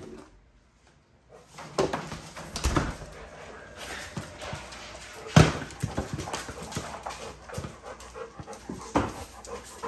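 American bully dogs making noise close to the microphone, with several sharp knocks; the loudest knock comes about halfway through. The sound starts after a brief hush, about a second and a half in.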